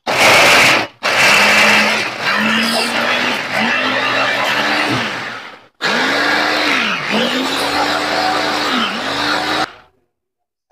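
Small electric mini food chopper whirring as it grinds shallots, garlic, ginger and candlenuts into spice paste. It runs in three bursts, a short one and then two longer runs, and the motor's pitch sags and recovers several times as the blades bog down in the mixture.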